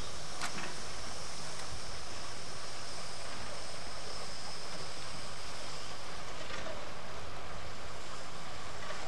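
Steady hiss of steam escaping from a standing steam locomotive.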